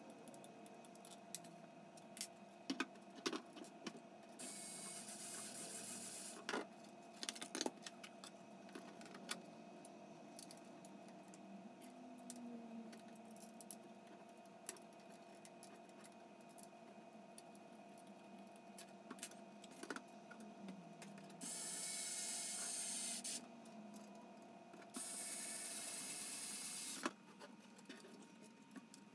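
Small clicks and taps of 3D-printed PLA parts and small machine screws being handled and fastened, with three short runs of a cordless electric screwdriver's motor, about two seconds each, once near the start and twice in the last third.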